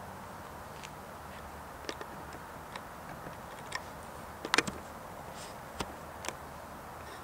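Steady low hum of a rail yard, with irregular sharp clicks and ticks scattered through it, the loudest cluster a little past halfway.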